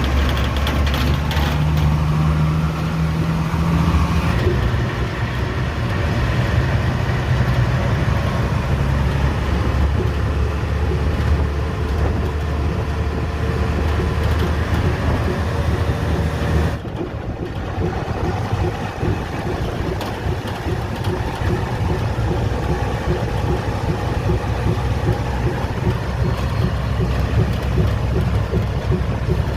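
Hino diesel truck engine running, heard from inside the cab, carrying the abnormal engine noise under test, which the mechanic judges somewhat serious but not very. The engine note drops about seventeen seconds in, then carries on.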